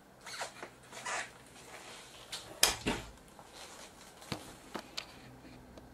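A plasma TV's power supply circuit board being lifted out of the metal chassis by hand: rustling and scraping of the board and its cables, a loud knock about two and a half seconds in, then a couple of light clicks.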